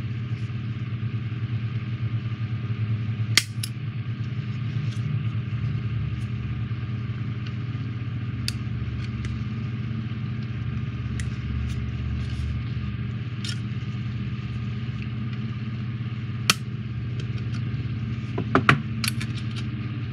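A steady low mechanical hum under a few sharp clicks of side cutters snipping the plastic base off its sprue: one a few seconds in, another later on, and a quick cluster near the end.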